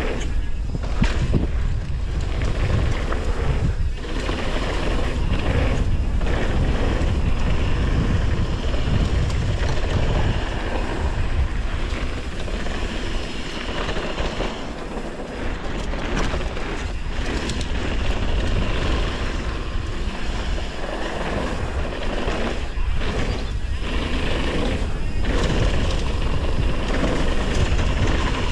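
Mountain bike running down a dirt trail: wind buffeting the microphone over a steady low rumble of tyres on the ground.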